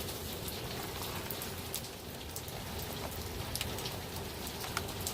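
Steady rain falling on a tin roof, with individual drops heard as scattered sharp taps.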